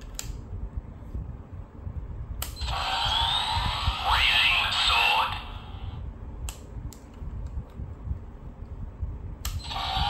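Plastic button clicks on a Bandai DX Raising Sword toy, each followed by its electronic sound effects from the built-in speaker: about three seconds of synthesized rising, warbling tones, then a few more clicks, and the sound effects start again near the end.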